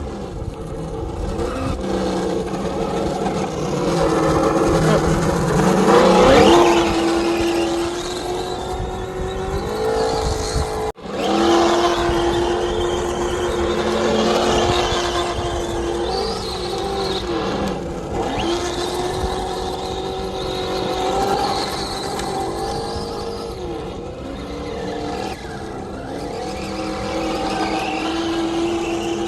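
Traxxas Slash 4x4 RC truck's OBA sound: a steady pitched drone that glides up and down again and again as the throttle is worked, with a brief dropout about eleven seconds in.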